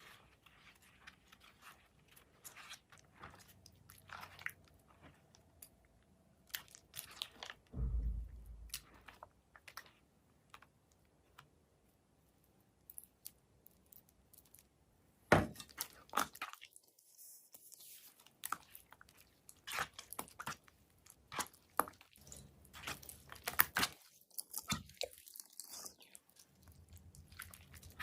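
Slime being squished and worked by hand: scattered small crackles, clicks and sticky smacks, with a low thump about 8 seconds in and busier crackling from about halfway on.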